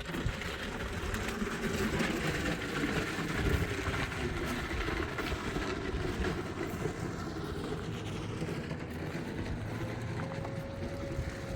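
A vehicle on the move: steady engine and road noise with a heavy rumble.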